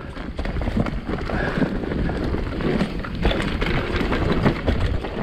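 Mountain bike riding down a rough, rocky trail: tyres rumbling and clattering over rock and the bike rattling, with wind on the microphone.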